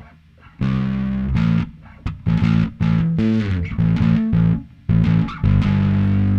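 Electric bass guitar played through effects pedals, giving a processed tone. It plays short phrases of notes with brief gaps between them, starting about half a second in, with a sliding pitch about three seconds in.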